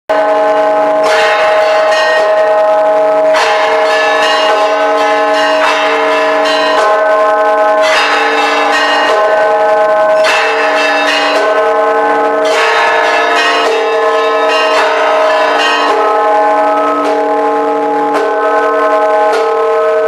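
Several church bells of the Church of the Holy Sepulchre ringing together: fresh loud strikes every second or two over a steady hum of overlapping bell tones.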